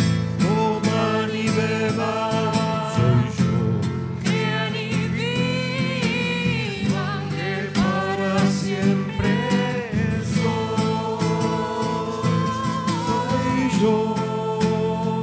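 A Spanish hymn is sung at the offertory by a small group led by a woman's voice, over strummed acoustic guitar; the singing swells twice, about a third of the way in and again past the middle.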